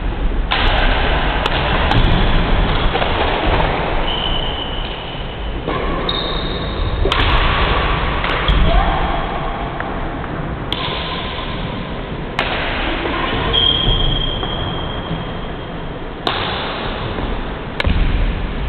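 Badminton rally on a wooden court: sharp racket strikes on the shuttlecock every few seconds, with a few brief high squeaks and low thuds from the players' footwork, over steady hall noise.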